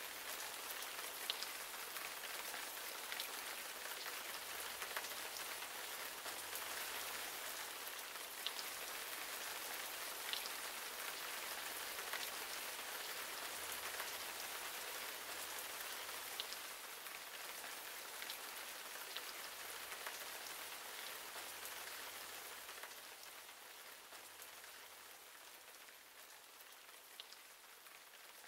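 Steady rain falling on leafy vegetation: an even hiss with scattered sharp ticks of individual drops, easing a little over the last few seconds.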